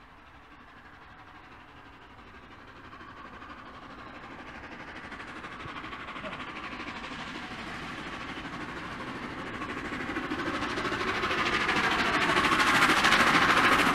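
LNER Peppercorn A1 Pacific steam locomotive 60163 Tornado approaching with a train of coaches, its exhaust and running noise growing steadily louder as it nears.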